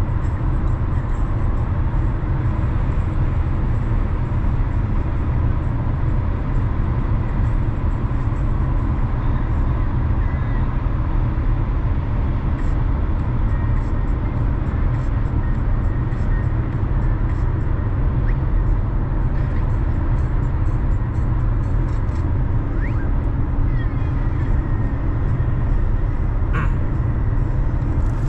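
Steady low rumble of road and engine noise from a car driving through city streets, heard from the moving car.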